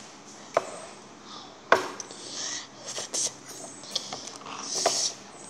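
A child eating a mouthful of instant noodles: chewing and breathing mouth noises, with a few sharp clicks of a fork against the bowl, the loudest just under two seconds in.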